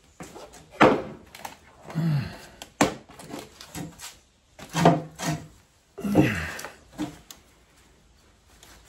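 Workshop handling noises: a series of knocks and clunks, with a few short falling creaks, over about seven seconds before it goes quiet.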